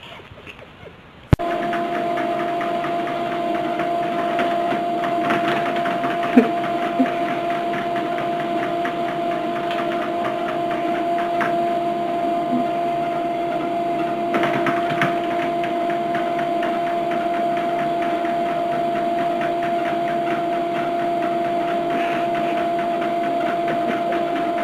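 A steady machine hum with a constant pitch, switched on abruptly with a click about a second in, with a few faint clicks over it.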